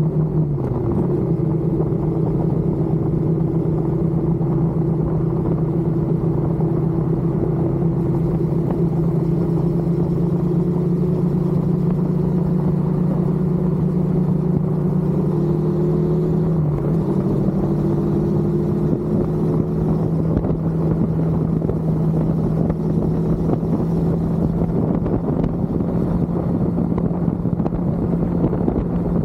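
Stock-exhaust Suzuki Inazuma 250 parallel-twin motorcycle engine running under way at a fairly steady speed. The pitch dips briefly about a second in and again around seventeen seconds in.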